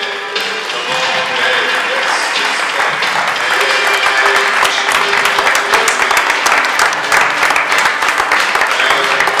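Audience applauding, the clapping building over the first few seconds and then holding steady, with music still playing underneath.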